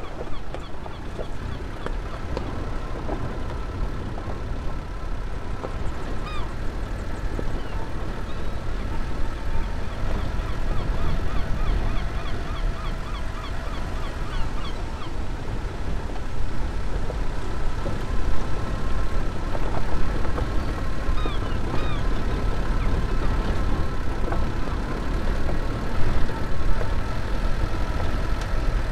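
Birds calling in repeated runs of short hooked calls over a steady low rumble.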